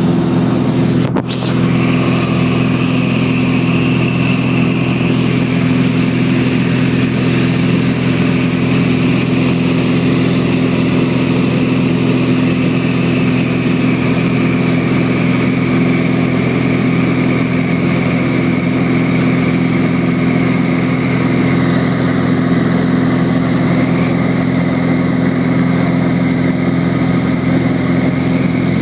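1958 Cessna 172's Continental O-300 six-cylinder engine and propeller droning steadily in flight, heard from inside the cabin. The sound breaks off for a split second about a second in.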